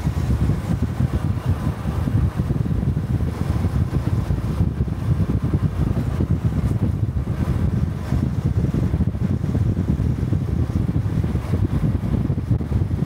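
Honda Cub 125 cc single-cylinder motorcycle running along the road, its exhaust note mixed with wind buffeting on the microphone.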